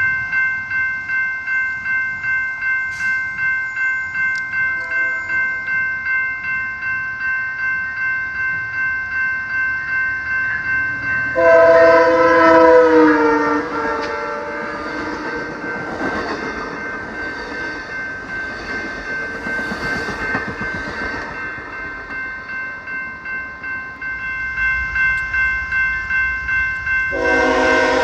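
Grade-crossing warning bell ringing about twice a second while a locomotive horn sounds a loud chord about 12 s in, its pitch sagging as the train goes by. The passing train's rumble follows, and another locomotive horn starts near the end.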